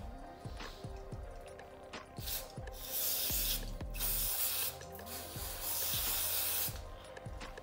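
Aerosol brake cleaner spraying in hissing bursts: a short one about two seconds in, then two longer ones, from about three to four seconds and from about four and a half to nearly seven seconds. Background music plays underneath.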